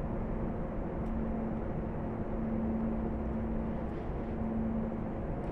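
Steady machinery drone with a constant low hum inside a road tunnel under construction.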